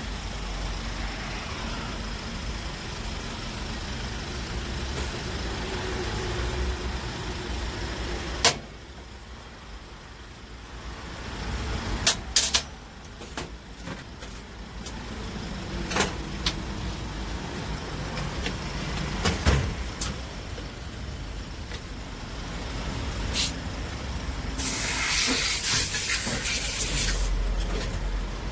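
Workshop noise: a steady low rumble broken by several sharp clicks and knocks, then a loud hiss lasting about three seconds near the end.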